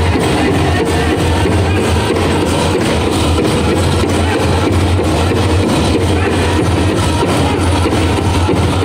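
Powwow drum group playing a men's chicken dance song: a steady, even beat on the big drum with the singers' voices over it.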